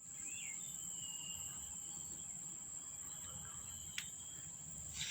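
A steady, high-pitched insect drone, with a few faint chirps in the background and a single sharp click about four seconds in.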